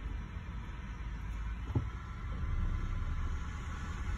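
Inside a car's cabin: a steady low rumble of engine and road noise, with a single short knock a little under two seconds in.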